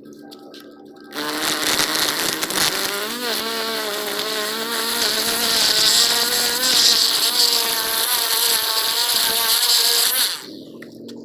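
String trimmer (weed eater) running at speed with a high, buzzing whine, its pitch wavering as it cuts. It starts about a second in and stops shortly before the end.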